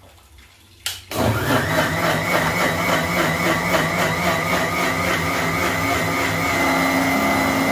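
A switch clicks, then an electric mixer grinder's motor starts about a second in and runs at a steady high speed, blending in its steel jar.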